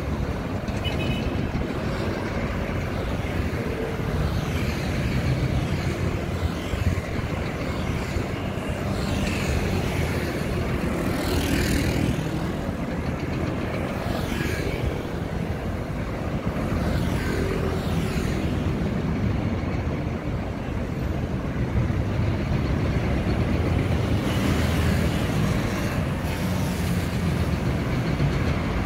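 Street traffic at low speed: cars, light trucks, a city bus and scooters driving past, their engines running over a steady rumble, with several passing vehicles swelling up and fading, most strongly about ten to twelve seconds in and again near the end.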